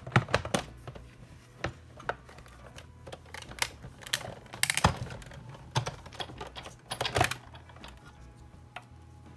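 Clear plastic cutting plates clacking and knocking as they are stacked and run through a Sizzix Big Shot manual die-cutting machine: a string of sharp clicks in several quick clusters.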